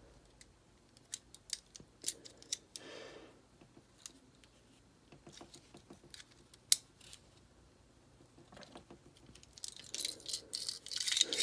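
Scattered small metallic clicks and taps as the lower frame of a Ruger Mark IV pistol and its trigger and hammer parts are handled and worked by hand. The sharpest click comes about two-thirds of the way through, and a denser rubbing, rustling noise starts near the end.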